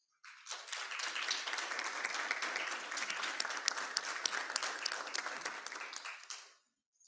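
Applause from a small audience and panel, many hands clapping at once. It starts a moment in, keeps going steadily for about six seconds, then dies away near the end.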